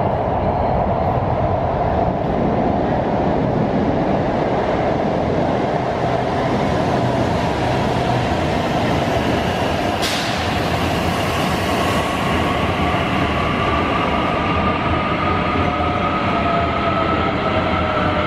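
CAF AS-2014 metro train running into an underground station and slowing along the platform: a steady rumble of wheels on rail, a brief hiss about ten seconds in, then an electric whine that shifts in pitch as the train brakes.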